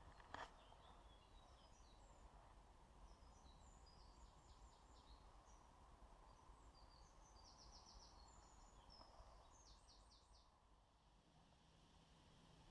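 Faint birdsong: scattered short, high chirps and quick trills from small songbirds, over a low steady background hiss. The birdsong stops about ten seconds in, leaving a faint low hum.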